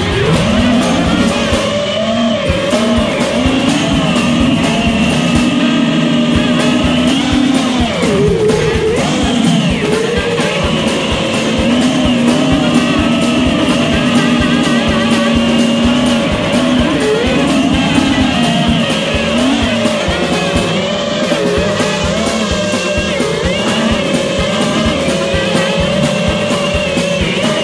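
FPV quadcopter's motors and propellers whining, the pitch wavering up and down with the throttle, over background music.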